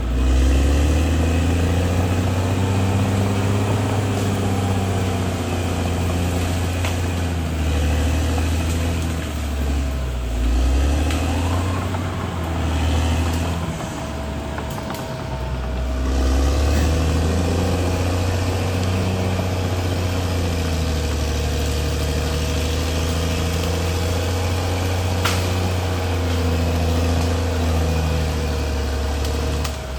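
Caterpillar D6R XL bulldozer's diesel engine working under load, its note rising and easing as the operator pushes, with a steady high whine over it. It softens for a few seconds about a third of the way through, then picks up again.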